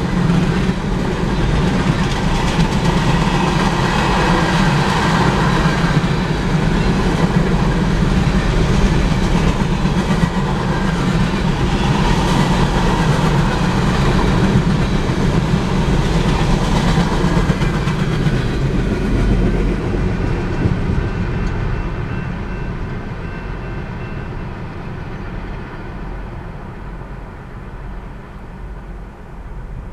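Empty ore hopper cars of a freight train rolling past at a grade crossing, steel wheels rumbling and clattering steadily on the rails. About two-thirds of the way through, the end of the train passes and the sound fades away.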